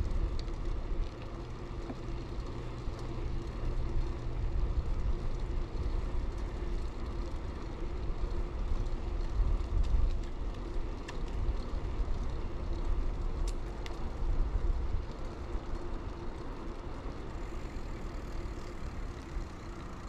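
Ride noise of an early-1990s Bianchi Alante mountain bike rolling along a road: a steady low rumble of wind and road noise that swells and eases, with a few light clicks.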